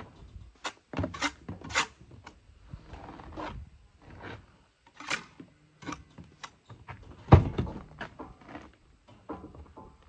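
Steel mason's trowel scraping and slapping mortar onto the end of a concrete block, heard as a string of short, irregular scrapes and clinks, with one heavier knock about seven seconds in.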